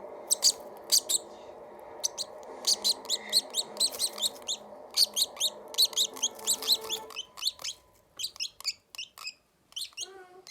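Baby lovebird chirping in rapid runs of short, high, shrill calls, the begging calls of a hand-fed chick, over a steady low hum that stops about seven seconds in.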